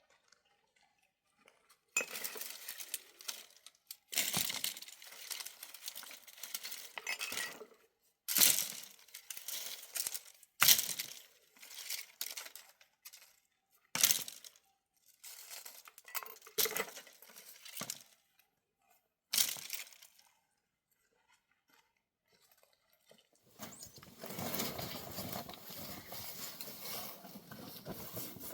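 Hard objects clinking and rattling in irregular bursts, with several sharp knocks among them. A steady rushing noise starts several seconds before the end.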